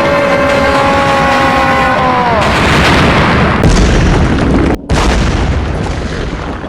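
Anime battle sound effects: a sustained pitched energy tone that suddenly drops in pitch about two and a half seconds in, giving way to rumbling explosion booms. There is a heavy blast near the middle, then a split-second cutout, then another blast that fades away.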